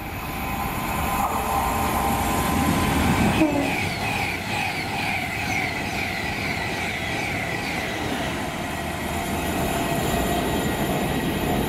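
Avanti West Coast express passenger train passing through the station at speed without stopping. The rush of wheels on rail builds over the first few seconds and is loudest about three seconds in. As the carriages go by, high tones slide down in pitch.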